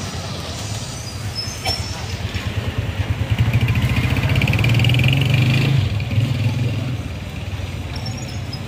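A motor vehicle's engine passing close by on the street, growing louder over a few seconds, loudest about five seconds in, then fading, over steady street background noise.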